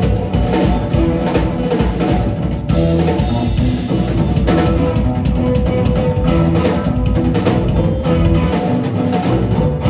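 Live psychedelic rock band playing: electric guitars, keyboard and a drum kit together, loud and steady.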